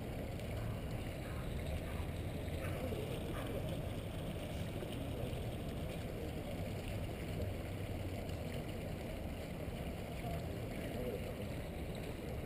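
Steady rushing outdoor noise, mostly low rumble, with the splashing of a small fountain close by.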